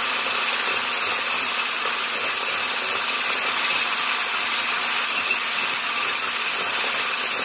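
Electric hand blender with a whisk attachment running steadily in a glass vase, beating egg whites into foam. The steady motor whir comes with a high hiss from the whisk churning the whites.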